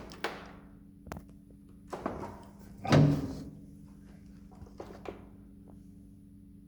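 A series of knocks and clunks, the loudest about three seconds in with a brief ring, over a faint steady hum.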